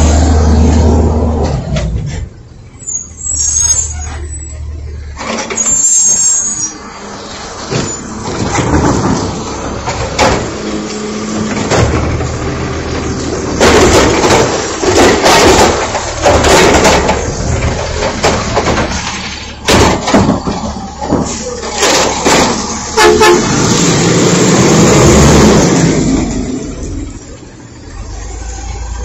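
Natural-gas-powered garbage truck running close by. Through the middle there is a long stretch of loud clattering and banging as it picks up and empties a recycle bin.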